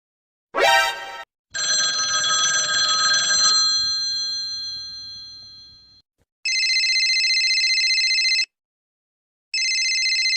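Sound-effect sequence: a brief rising sound, then a ringing tone of several pitches that fades away over about four seconds, then an old-style telephone bell ringing twice, each trilling ring about two seconds long with a pause of about a second between.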